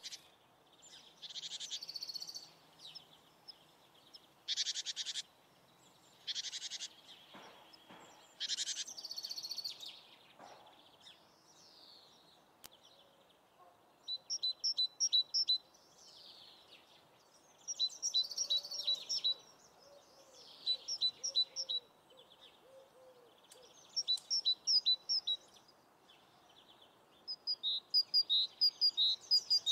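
Songbirds singing: short phrases of high, quick chirping notes every two to four seconds, with buzzy trilled phrases in the first ten seconds.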